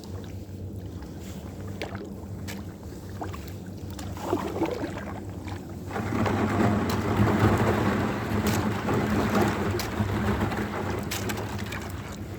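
Water sloshing and splashing around a kayak under paddle, turning to a louder rush of water at about six seconds in that fades away near the end.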